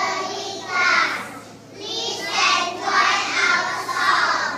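A group of young children singing together, with a short break about a second and a half in.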